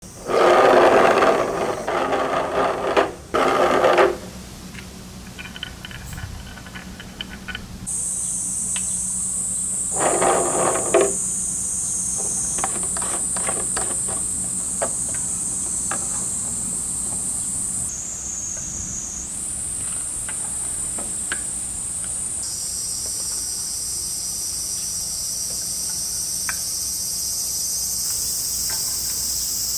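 A steady, high-pitched insect chorus. Louder rattling and clattering noises come in the first few seconds and again about ten seconds in, with scattered light clicks between.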